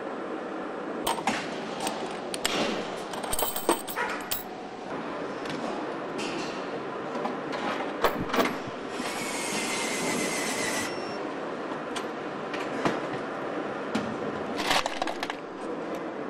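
Car assembly-line factory noise: a steady machine hum with scattered sharp metallic clinks and clanks, and a high whirring hiss lasting about two seconds just past the middle.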